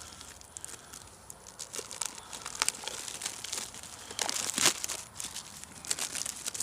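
A stack of paper plates being handled and pulled open, making irregular crinkling and crackling. The handling gets busier and louder in the second half.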